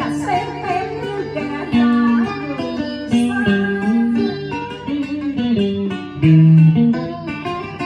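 Guitar playing a slow melodic instrumental passage of single notes, some held and some bent or slid in pitch, over a steady low backing tone.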